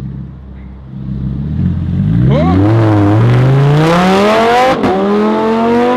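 Lamborghini Huracán's V10 engine accelerating hard away, its pitch climbing through the gears with a brief drop at each upshift and a sharp crack at the shift near the end.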